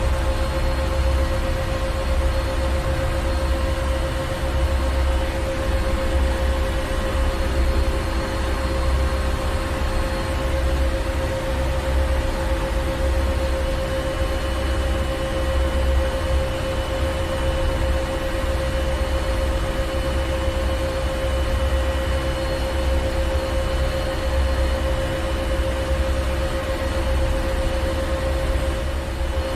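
Ship's engine room: heavy marine machinery running steadily, a low uneven throbbing rumble under a constant mid-pitched hum and a wash of mechanical noise.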